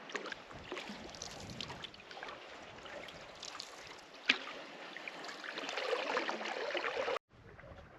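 Canoe paddling: paddle strokes moving through lake water, with one sharp knock about four seconds in. The sound cuts off suddenly near the end.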